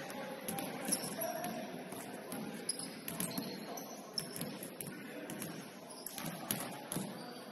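Basketball game ambience in a gym: scattered short knocks and brief high squeaks from the ball and sneakers on the court, over a murmur of indistinct voices.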